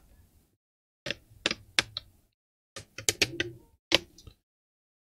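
Plastic clips of an Acer Aspire 3 laptop's screen bezel clicking as the bezel is worked loose by hand. Sharp clicks come in short clusters from about one to four seconds in.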